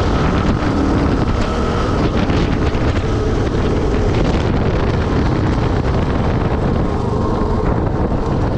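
KTM 690 Enduro's single-cylinder engine running under heavy wind noise on the microphone as the motorcycle slows on a dirt track from about 75 to about 35 km/h.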